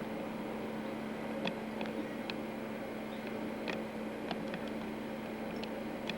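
Steady electrical hum and hiss, with faint short ticks scattered through it.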